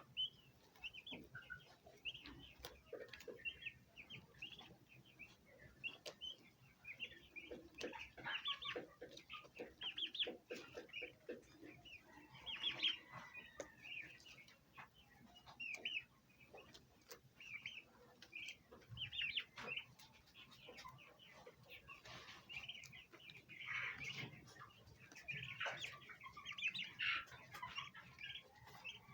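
Turkey poults peeping constantly in short, high chirps, with a bronze turkey hen's low clucking joining in now and then.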